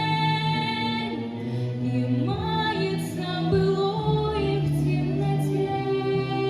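A teenage girl singing a slow melody with long held notes over a musical accompaniment.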